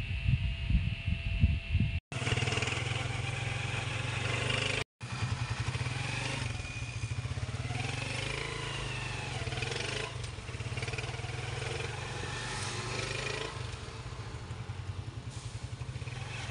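Motorcycle-type engine running steadily with a low, even pulse, heard from aboard the moving vehicle. The first two seconds, before a cut, hold louder, irregular low thumps.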